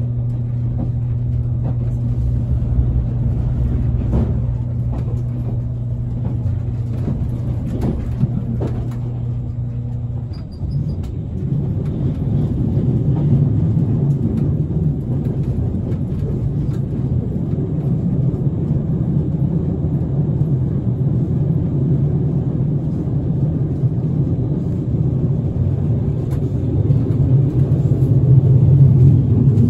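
Running noise inside a JR Kyushu 787-series electric train car. A steady low hum with scattered clicks gives way, about ten seconds in, to a rough low rumble of wheels on rail that grows a little louder toward the end.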